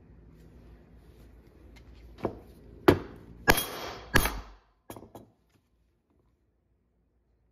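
A mallet striking a steel slot punch four times to cut an oblong slot through leather, the blows about two-thirds of a second apart, followed by two lighter knocks.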